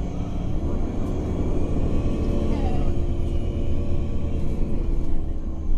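Nova LFSA articulated city bus heard from inside while under way: a steady engine and drivetrain rumble with a low hum.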